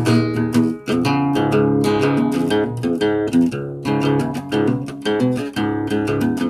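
Guitar played solo: chords strummed and picked in a steady rhythm, the chord changing every second or so.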